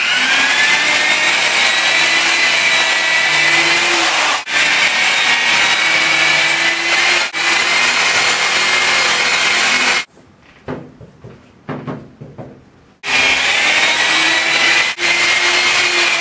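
Corded electric rotary polisher with a foam pad running with a steady whine while it buffs car paint with polishing compound. It stops about ten seconds in and starts up again about three seconds later.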